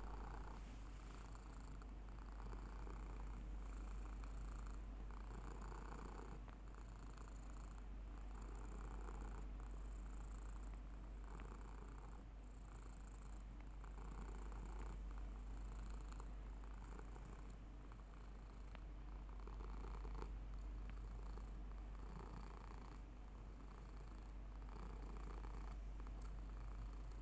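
Domestic cat purring steadily, the purr swelling and easing with each breath about every one and a half to two seconds.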